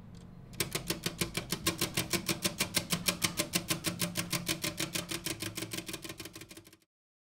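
3D-printed plastic tourbillon escapements of the Aeria Mechanica sculpture ticking fast and evenly, about eight ticks a second, over a low hum from its spring-driven gear train. The ticking starts about half a second in and cuts off suddenly near the end.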